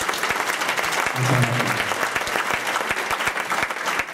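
Audience applauding with steady, dense clapping, and a man's voice heard briefly about a second in.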